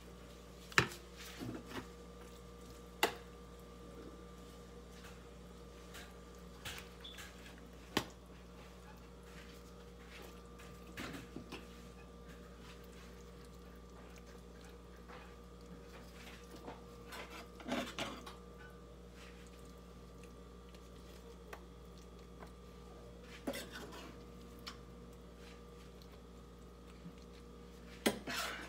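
A metal serving spoon tapping and scraping in a disposable aluminium foil pan as lasagna fillings are spread, in a few sharp clicks and short scratchy bursts, over a steady electrical hum.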